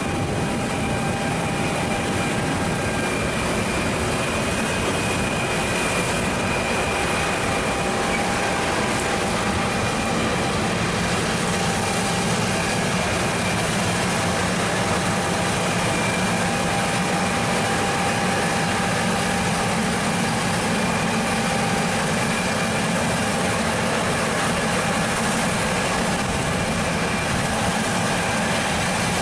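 John Deere T670i combine harvester running steadily under load, a constant machine drone with steady whining tones over it.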